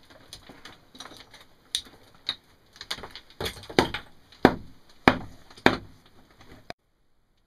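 Handling noise: a run of uneven clicks and knocks, with several heavier thuds about three to six seconds in. Near the end the sound cuts off abruptly.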